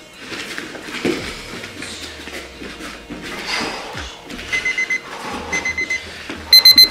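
Digital timer beeping in quick groups of four short beeps, about one group a second, starting about halfway in and getting much louder near the end: the signal to switch to the next exercise. Before it, faint scuffing of bare feet on the gym mat.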